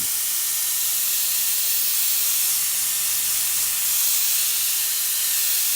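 Handheld cordless turbo jet fan (mini blower) running, its high-speed air jet making a steady, high-pitched rushing hiss.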